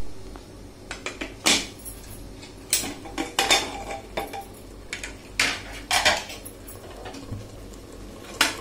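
Aluminium pressure cooker lid being turned and lifted off the pot: a series of metal clanks and knocks, some briefly ringing, as the lid and its handle strike the rim.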